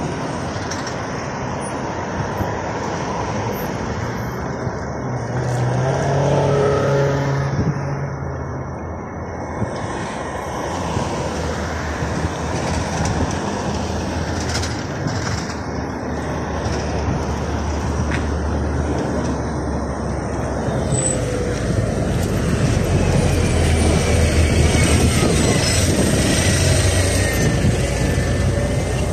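Steady city road traffic: cars and minibuses driving past. A louder low engine hum builds over the last several seconds as a LiAZ 5292.67 city bus, running on compressed natural gas, approaches and pulls in to the stop.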